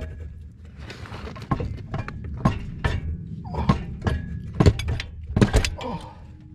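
Irregular metal knocks and clunks, about eight strong ones, as the 1981 Toyota 20R/22R's automatic transmission is worked back and forth to walk it off the engine. The loudest knock comes right at the start, with another pair about five and a half seconds in.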